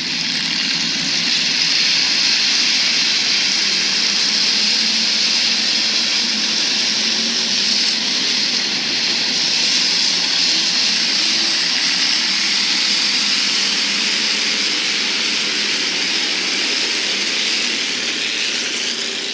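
A pack of Hobby Stock race cars running together on a dirt oval: a loud, steady engine drone with pitch that wavers slightly as the cars lap.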